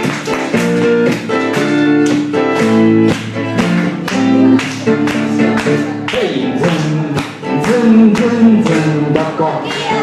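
Instrumental introduction of an upbeat enka song: a band playing pitched melody over a steady, evenly struck beat, with guitar prominent.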